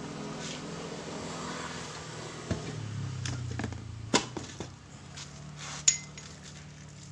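Hand work on car parts: a few sharp taps and clicks, about four, spaced a second or two apart, over a faint steady low hum.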